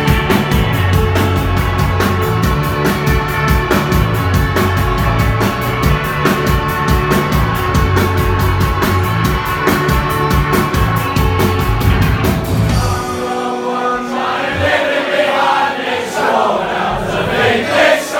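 Rock band playing live with a steady, fast hi-hat, bass and guitars. About 13 seconds in, the drums and bass drop out and the audience sings the song together.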